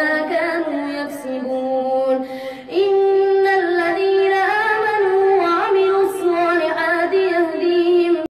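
A boy's voice reciting the Quran in a drawn-out melodic chant, holding long notes. A brief pause for breath comes just under three seconds in, and then the voice resumes at a higher pitch.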